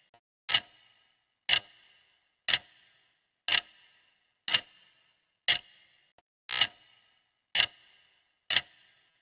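Clock ticking steadily, one sharp tick each second, each with a brief fading tail.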